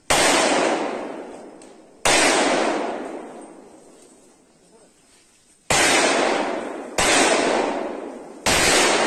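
Five single gunshots at uneven intervals, each a sharp crack followed by a long echoing tail that fades over a second or two.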